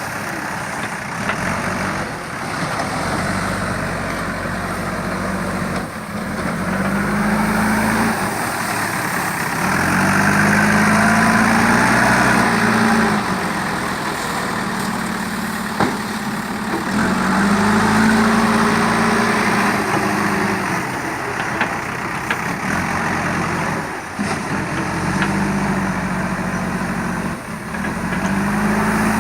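JCB 3DX backhoe loader's four-cylinder diesel engine running, revving up under load and dropping back about every seven or eight seconds as the machine works, with a few sharp knocks.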